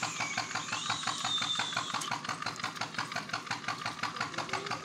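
An engine running steadily at idle with an even, quick beat of about six pulses a second.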